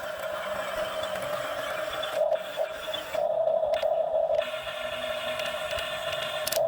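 Excavator working, its engine and hydraulics running with a steady whine and a rough hiss over it that shifts a couple of times.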